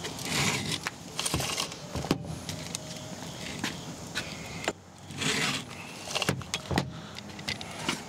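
A two-in-one chainsaw filing guide, its round file and flat file together, rasping across the cutter teeth of a Stihl chainsaw chain in a series of short strokes, with a brief pause a little before the middle. The round file sharpens each cutter while the flat file skims down the depth gauge.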